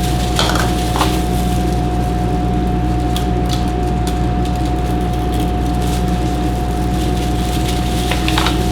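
Hands rubbing olive oil, seasonings and garlic into a raw whole chicken, giving scattered short wet squishes and taps. A steady low hum with one constant tone runs underneath.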